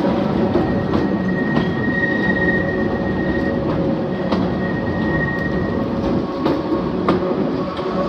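Narrow-gauge steeple-cab electric locomotive running along the track, with a steady hum under the running noise and its wheels clicking over rail joints every second or so. A thin wheel squeal comes and goes between about two and six seconds in.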